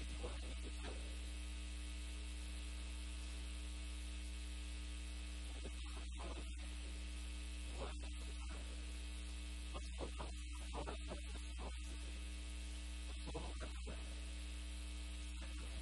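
Steady electrical mains hum, with faint chalk strokes on a blackboard now and then as equations are written.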